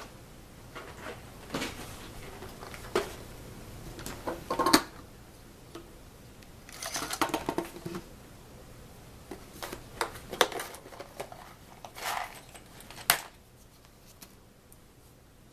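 Small tools and parts being handled on a workbench while a Dremel rotary tool is set up: scattered clicks, knocks and short rattles, with a longer rattling patch in the middle; the tool itself is not running.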